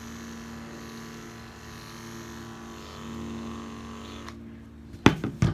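Corded electric pet clippers with a No. 10 blade humming steadily while shaving a long-haired cat's fur, with the hiss of the blade cutting through the coat. The cutting hiss stops about four seconds in while the motor hum goes on, and two sharp knocks come near the end.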